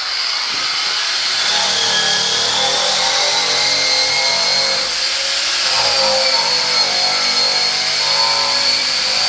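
Handheld power tool spinning a surface-prep stripping wheel against metal: a steady abrasive hiss with a high whine that sags slightly a couple of seconds in and climbs back as the load changes.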